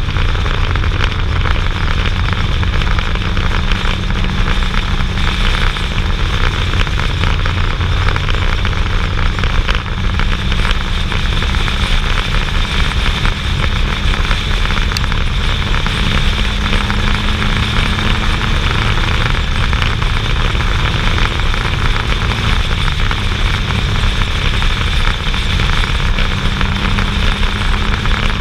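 Motorcycle riding at road speed: a heavy rush of wind on the microphone over the bike's engine running steadily, its note shifting slightly partway through.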